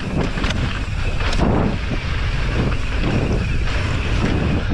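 Wind rushing over the microphone of a mountain bike in motion on a trail, with the steady rumble of riding and a few sharp knocks from the bike over rough ground.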